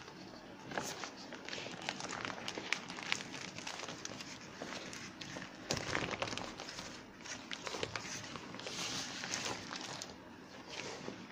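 Thin vinyl of a burst beach ball crinkling and rustling as it is squeezed, stretched and spread over the floor by hand, with irregular small crackles.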